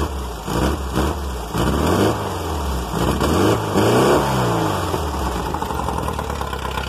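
Volkswagen air-cooled flat-four engine with 150,000 miles on it, revved up and back down a few times by hand at the carburettor linkage, then settling toward idle near the end.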